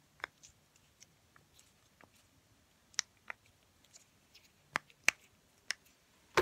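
Silicone push-pop fidget stick being pressed: bubbles pop one at a time as short, sharp clicks at irregular intervals. The pops get louder in the second half.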